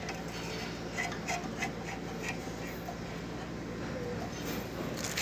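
Small metallic clicks and rubbing as the brass nut of a manifold gauge charging hose is threaded onto the aircon's low-side access valve, with one sharp click at the very end, over a faint steady low hum.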